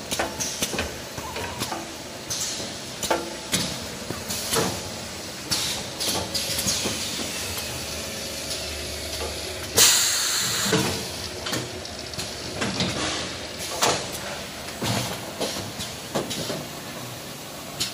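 Semi-automatic kitchen towel bag packing machine running, with irregular clacks and knocks from its moving parts and repeated short hisses of air from its pneumatic cylinders. The longest and loudest hiss comes about ten seconds in.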